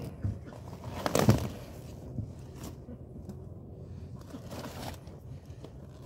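A cabbage being cut from its stalk with a knife: leaves rustling and crunching, with one louder crunch about a second in.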